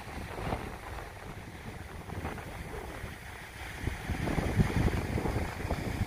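Strong wind buffeting the microphone in an irregular low rumble, gusting harder about four seconds in.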